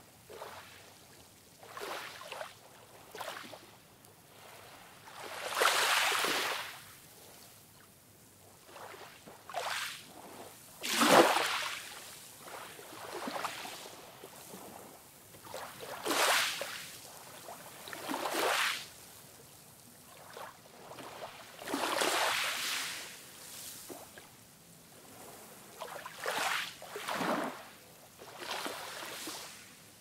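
Gentle ocean waves breaking and washing up a sandy beach: a swell of rushing surf every few seconds, the loudest about eleven seconds in.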